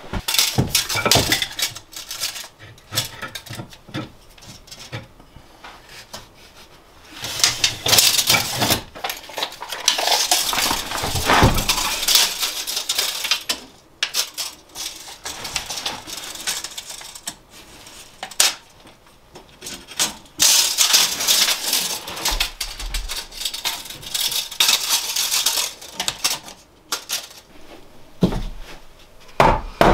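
Hard objects clattering and clinking in quick runs of sharp knocks, in a few bouts of several seconds each with quieter stretches between.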